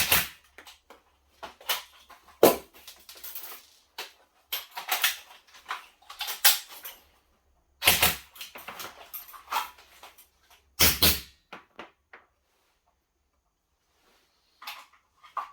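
Airsoft drill: an electric Specna Arms Edge M4A1 rifle fires, its magazine is dropped and swapped with clicks and rattles, then a W.E Tech Glock 19 gas-blowback pistol fires. Sharp cracks come near the start, about two and a half, eight and eleven seconds in, with handling clatter between them.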